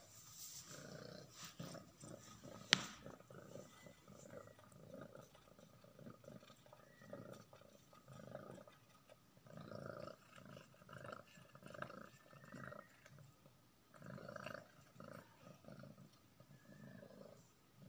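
Domestic cat purring in short, uneven bursts while it eats, with a single sharp click about three seconds in.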